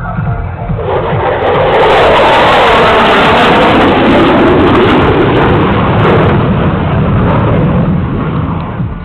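F-16 fighter jet passing overhead: jet engine noise swells about a second in, stays loud through the middle with a sweeping, rushing pitch, and fades away near the end.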